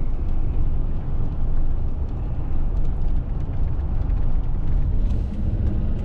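Steady low rumble of a car's engine and tyres heard from inside the cabin while driving at road speed.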